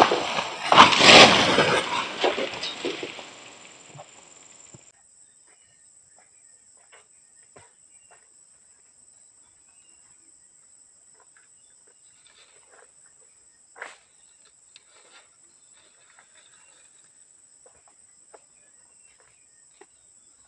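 An oil palm frond, cut with a long harvesting pole, comes down with a loud rustling crash through the leaves, fading out after about four seconds. After that there are only faint scattered ticks and a faint steady high whine.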